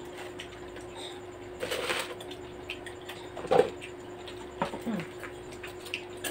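Eating noises at a table: scattered small clicks and taps of hands, plates and a plastic cup. One louder knock comes about three and a half seconds in, over a steady low hum.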